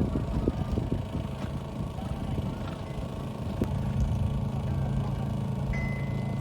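An engine idling: a steady low hum that settles in a little past halfway, over a rougher low rumble with a few small clicks before it.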